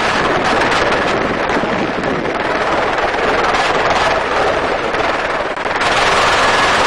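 Helicopter in flight, its rotor and engine noise mixed with a steady rush of wind buffeting the microphone through the open-sided cabin. The noise grows brighter and a little louder near the end.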